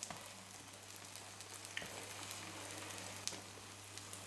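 Butter frying faintly around a folded cheese omelette in a frying pan, a steady fine sizzle with a few faint ticks, over a steady low hum.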